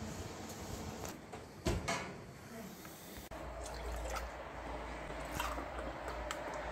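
Milk being poured from a glass and a carton into a stainless steel pot, splashing and filling. Before it, about two seconds in, there are two sharp knocks in quick succession.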